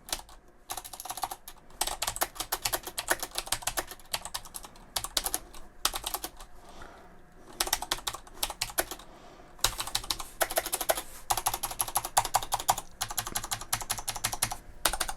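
Rapid typing on a Thermaltake X1 RGB mechanical keyboard with clicky Cherry MX Blue switches: dense runs of keystrokes broken by a few brief pauses.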